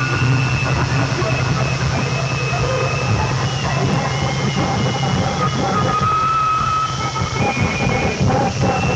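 Industrial noise music from a 1984 cassette, played from a direct transfer of the original tape: a dense wall of clattering, grinding noise over a steady low drone, with shrill squealing tones that waver and shift in pitch.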